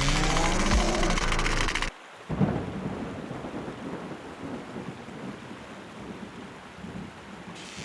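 A loud music cue with gliding pitched sounds cuts off abruptly about two seconds in. A sudden crash like a thunderclap follows, then a steady rain-like hiss that slowly fades.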